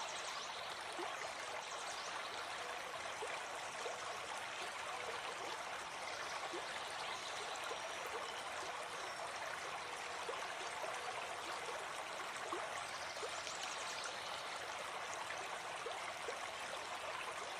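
Forest stream running steadily: an even rush of water dotted with many small gurgles.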